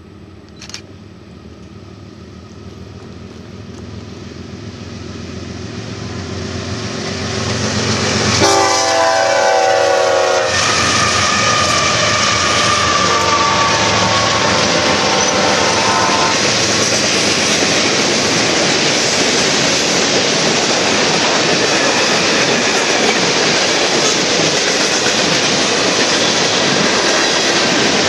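BNSF freight train approaching, its diesel locomotives growing steadily louder, with a horn blast of about two seconds as the lead units pass about eight seconds in. After that comes the steady rumble and clatter of freight cars rolling by at speed.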